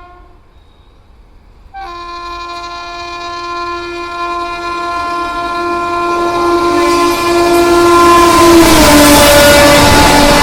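WAP7 electric locomotive's horn: the tail of one blast, then after a short gap a long, steady blast held to the end, growing louder as the train approaches. Near the end the horn's pitch drops as the locomotive passes, and the rushing noise of the passing train rises to its loudest.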